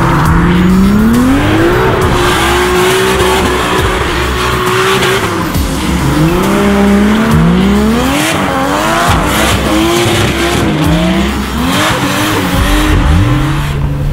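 Drift car engine revving hard, its pitch climbing and dropping again and again as it slides, with tyres squealing. Near the end the engine settles into a steadier low note.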